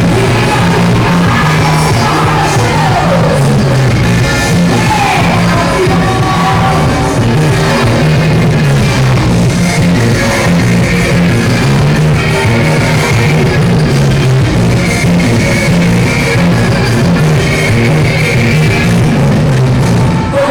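Loud music in a rock style with a singing voice, playing continuously at a steady level.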